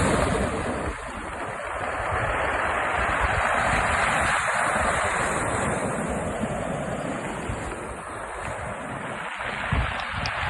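Sea waves breaking and washing up the beach on a rising tide, in surges that swell and fade, with wind buffeting the microphone.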